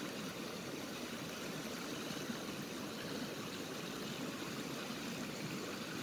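Steady rush of a flowing creek, an even hiss of water with no distinct splashes or knocks.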